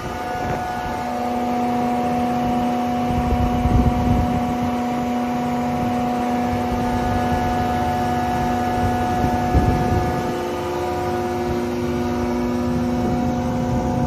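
Żefam DSZB-50 surface planer (jointer) running, its three-knife cutterhead giving a steady hum. It swells several times into louder, rougher surges as wood is passed over the knives.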